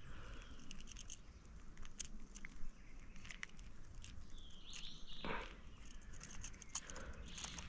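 Faint scattered clicks and light patter of water from a hooked peacock bass being handled at the water's surface on a topwater lure and line, with one short sliding squeak about five seconds in.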